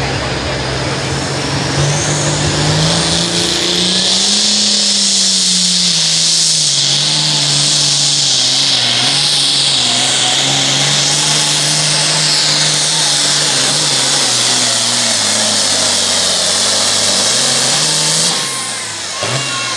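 International Harvester 1086 super farm pulling tractor's diesel running at full throttle under load while pulling the sled: a deep, steady engine note with a loud high hiss over it. The pitch rises a little about four seconds in and then wavers. The engine backs off near the end.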